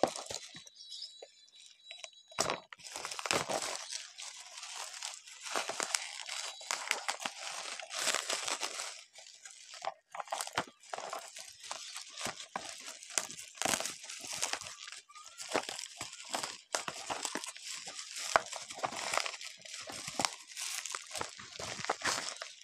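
Bubble wrap and a plastic bag crinkling and crunching as they are handled and pulled off a boxed toy, with many irregular sharp crackles.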